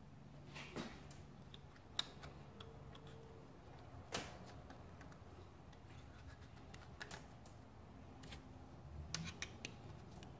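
Faint, scattered small clicks and taps of metal parts being handled: a Corvette servo cover being worked by hand into the servo bore of a 4L60 transmission case. The ticks come one at a time every second or two, with a quick cluster near the end.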